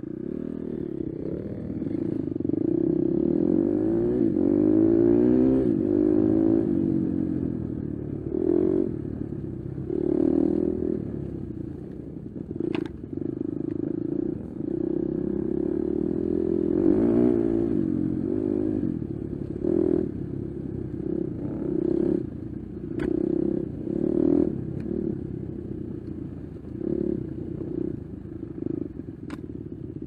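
Four-stroke enduro dirt bike engine revving up and down in repeated throttle bursts while climbing a rough trail, with a few sharp knocks and clatter from the bike over the ground.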